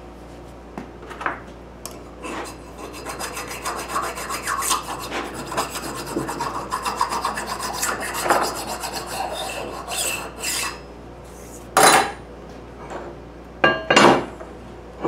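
Quick, busy rubbing and scraping on steel parts for several seconds, then sharp knocks as a steel plate and bar are set down and lined up on a wooden workbench, the last two knocks close together.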